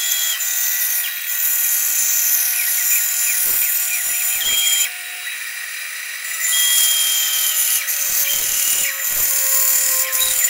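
Bandsaw running and cutting through 3/4-inch luan plywood with a steady high whine. The cutting sound drops back for a second or so around the middle, then picks up again.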